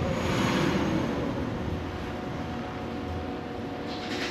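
A steady machine hum with a few constant tones running under it, and a brief swell of hiss in the first second.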